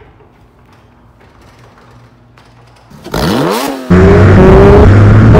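A garage door opener runs faintly, then about three seconds in the flat-six of a black 2006 Porsche 911 Carrera (997.1) on its stock OEM exhaust comes in loud, accelerating hard with its pitch climbing steadily.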